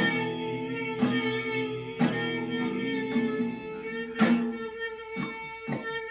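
Strummed acoustic guitar in an instrumental passage of a song, a strum about once a second and then quicker strokes in the last two seconds, over one long held note.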